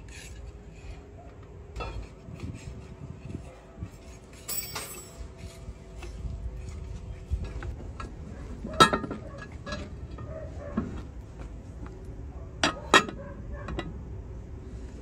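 Steel crawler track parts clinking and knocking as the track chain and heavy steel track shoes are handled and fitted together. There are scattered metal-on-metal strikes, the loudest about nine seconds in and two more in quick succession near the end.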